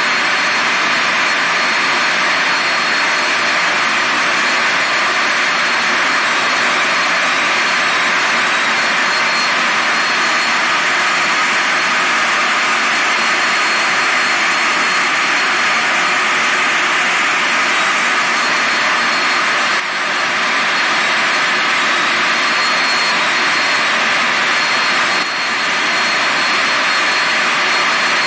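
Steam safety valve hung open, venting steam in a loud steady rush with a thin high whistle through it: the valve has failed to reseat. The level dips briefly twice near the end.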